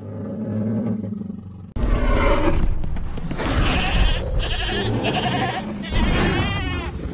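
Tyrannosaurus rex roar sound effect: a low growl, then a loud, deep, rough roar that starts suddenly about two seconds in and carries on for several seconds.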